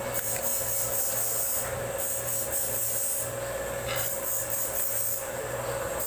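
Background music with a steady repeating beat and hissy high percussion.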